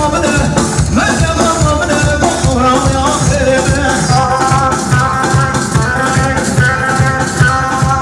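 Loud Kurdish wedding dance music from a live band: a fast, even beat of about four strokes a second under a sustained melodic line.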